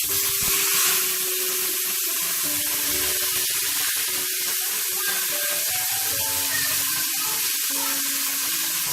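Masala-coated chicken thigh frying in hot oil in a pan: a steady, loud sizzle that is strongest in the first second.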